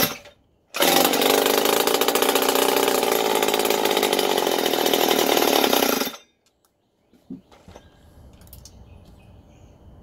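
A Stihl TS-series concrete cut-off saw's two-stroke engine is pull-started with its muffler removed. It catches about a second in and runs very loudly and steadily for about five seconds. Then it cuts out abruptly, dying when the throttle is opened.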